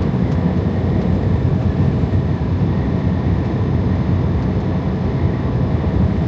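Steady drone of a Freightliner Cascadia semi truck cruising on the highway: engine and road noise heard from inside the cab.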